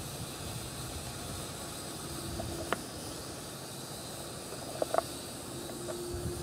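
Steady outdoor hiss, with the faint hum of a distant JJRC H8C mini quadcopter's motors coming in about two seconds in and again near the end. Two small clicks.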